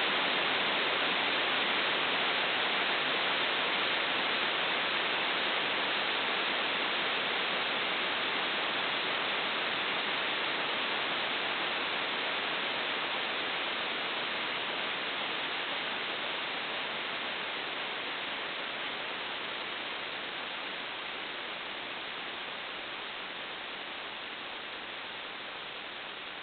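A steady, even hiss of noise with no distinct events, fading slowly and cutting off abruptly at the very end.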